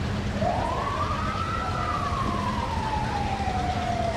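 An emergency vehicle siren gives a single wail: it rises quickly, then falls away slowly. A steady low hum and rumble runs underneath.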